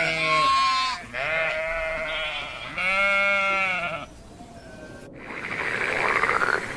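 Sheep bleating: long, wavering calls one after another, with two full bleats in the first four seconds. From about five seconds in they give way to a steady, noisy background.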